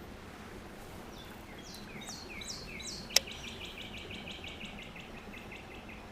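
A songbird singing: a string of downward-slurred whistled notes that quicken into a fast trill, which slows and falls in pitch near the end. A single sharp click a little past the middle stands out above the song.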